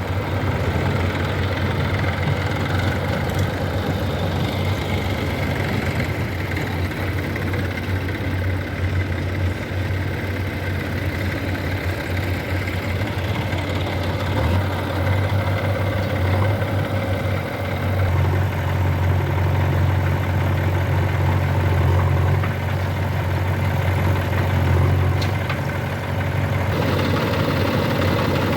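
Heavy diesel engine running steadily with a deep hum, louder for a stretch in the second half.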